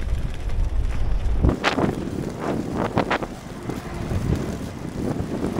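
Wind buffeting the microphone of a moving bicycle rider, giving way after about a second and a half to a run of irregular sharp knocks and clatter.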